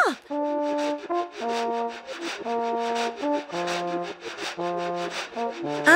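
Cartoon background music: a low, brass-like melody of held notes stepping mostly downward, over a steady brushing, shuffling beat.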